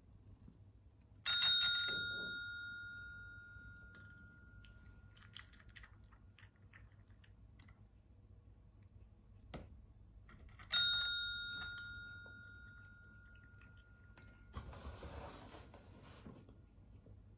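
Desk call bell rung twice by a cat, about nine seconds apart, each a bright ding that rings on and fades over a few seconds. Near the end comes a short rattling noise.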